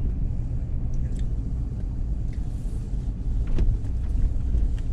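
Pickup truck running at low speed, a steady low rumble of engine and road noise heard from inside the cab, with a few faint clicks.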